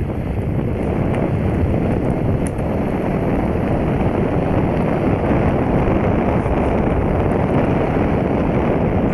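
Steady rush of wind on the microphone, with tyre noise on asphalt, while riding a KingSong KS-16X electric unicycle along a paved road at speed.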